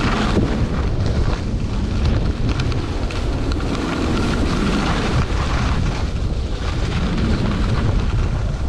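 Wind buffeting the microphone of a camera worn by a moving skier, a steady low rumble, with skis hissing over packed snow.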